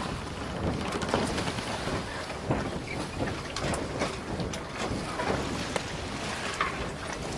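Sailing catamaran under way: water splashing and rushing along the hulls, with wind blowing across the microphone.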